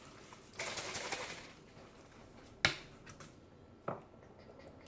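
Small kitchen handling sounds while vanilla extract is measured out: a brief rustle, then a sharp click and a lighter click about a second later.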